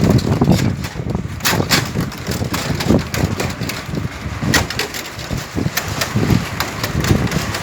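Bicycle rolling over a wooden-plank bridge deck, the loose planks clattering and knocking irregularly under the wheels.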